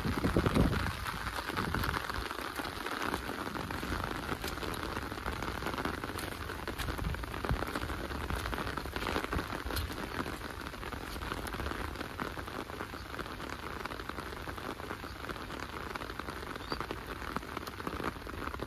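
Steady rain falling, a constant hiss dotted with scattered individual drops ticking. There are a few low thumps in the first second.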